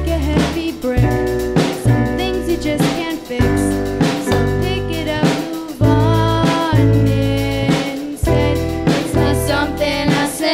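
A small live band playing a song: electric guitar, upright double bass and drum kit, with a singer's voice over them.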